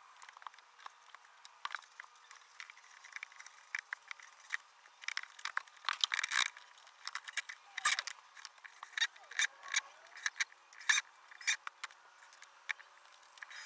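Wooden parts and hand tools being handled and set down on a plywood workbench: an irregular series of clicks, knocks and light clatter, busiest in the middle of the stretch.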